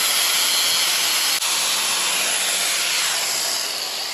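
A cutoff wheel grinding through the old motorcycle drive chain: a steady, loud hissing grind that eases off slightly near the end.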